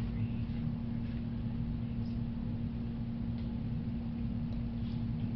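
Quiet room tone: a steady low electrical hum with a few faint, soft ticks, and no bubble-wrap pops.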